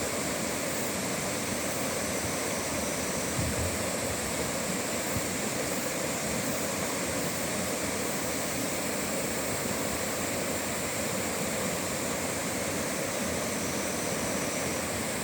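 Mountain valley stream rushing and splashing over rocks, a steady even rush of water.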